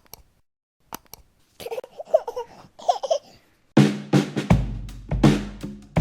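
Intro music: a few sharp clicks and a short warbling effect, then a drum-led beat with a steady bass comes in about four seconds in.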